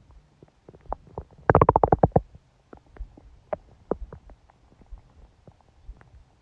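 A woman's stomach growling and gurgling during her period: scattered small gurgling pops, with one loud run of rapid gurgles about a second and a half in.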